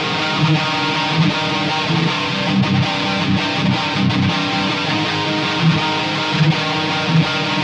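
Distorted electric guitar riff through a Line 6 Spider IV 15 amp on its Metal channel, giving medium gain with all effects off for a dry tone, recorded straight from the amp's output. Low notes are accented at a steady pace.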